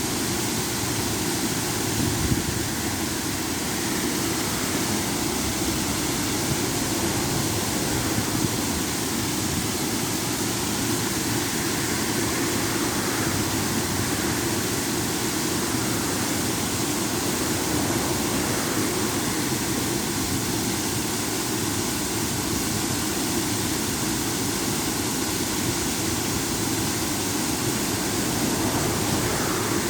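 Small river waterfall: water pouring and splashing in a steady, even rush.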